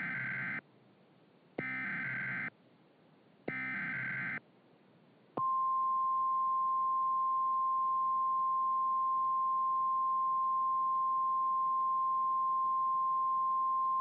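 Emergency Alert System SAME header: three short bursts of digital data tones, each about a second long and about a second apart. About five seconds in, a steady single-pitch NOAA Weather Radio warning alarm tone starts, signalling the start of an emergency alert broadcast.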